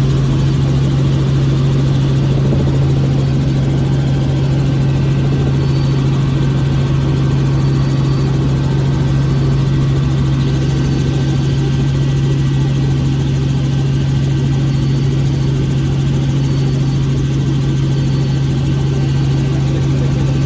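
Helicopter in flight, heard from on board: the engine and rotors make a steady drone with a strong, deep hum that does not change.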